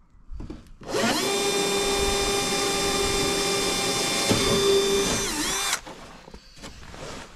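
Bosch cordless drill's motor spinning up and running at a steady high whine for about five seconds, then winding down and stopping.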